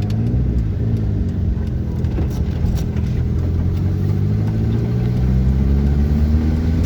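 Turbocharged Fiat Uno four-cylinder engine pulling steadily under load, its pitch climbing slowly as the car gains speed, with a brief dip right at the end.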